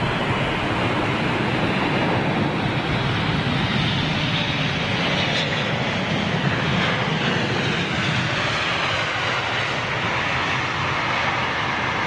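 Boeing 777 airliner's jet engines, a steady loud rush of jet noise with a faint high whine as the inbound plane passes.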